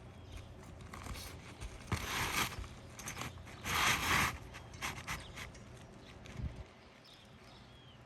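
Asphalt roof shingles scraping and rustling as they are handled and worked into place, with two longer scrapes about two and four seconds in and a few light knocks.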